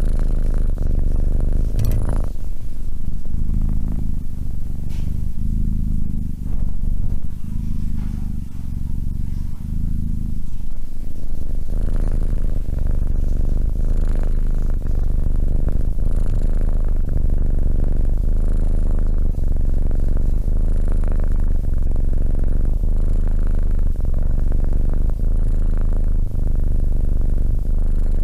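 Kitten purring loud and deep right at a close microphone, pulsing in cycles of about a second. A brief tap sounds about two seconds in.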